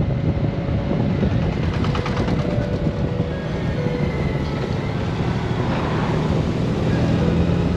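Honda Gold Wing motorcycle under way at a steady cruise: a low engine hum mixed with wind and road noise.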